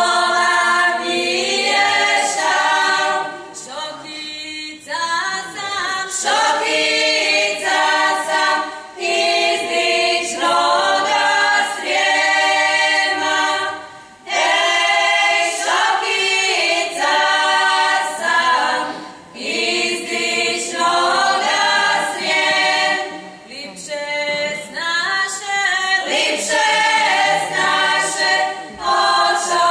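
Women's folk singing group from a village cultural society, singing a cappella in several voices. The song moves in long held phrases with short breaks between them.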